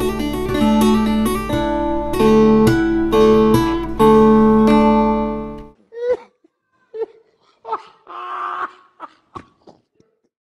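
Plucked acoustic guitar music with a steady low bass, cutting off suddenly a little over halfway through. A few faint, short, scattered sounds follow.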